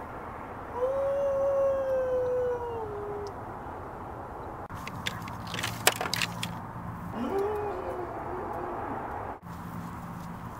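A long howl held at one pitch and sagging slightly over about two and a half seconds. A few seconds later come a cluster of sharp clicks over a low hum, then a shorter rising howl.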